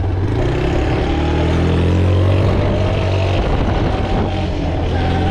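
A vehicle engine running with a steady low hum, its pitch climbing gradually over a few seconds as it speeds up.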